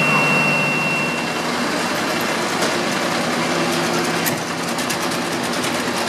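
Fire engine's engine idling steadily, a loud mechanical drone, with a thin high tone over it that stops about a second and a half in.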